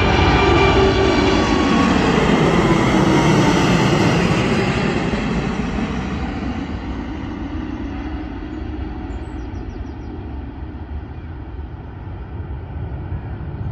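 Airbus A380's four Rolls-Royce Trent 900 turbofans at takeoff thrust as the airliner passes and climbs away: loud jet engine noise whose whining tones fall in pitch over the first couple of seconds, then fades steadily from about five seconds in.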